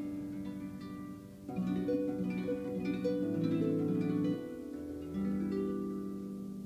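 Harp played by hand: a slow, gentle melody of plucked notes left to ring, with a quicker run of notes from about a second and a half in, then longer notes ringing out near the end.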